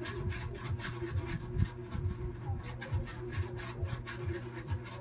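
Repeated scraping or rasping strokes, several a second, like filing or sawing, over a steady low hum.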